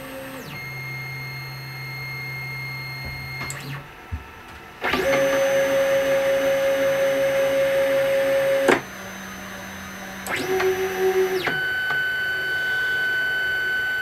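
Stepper motors of a self-built ball-screw CNC router driving its axes in a series of separate moves. Each move whines at a steady pitch that glides up as it starts and down as it stops. The loudest move comes about five seconds in, and another begins near ten seconds and runs on.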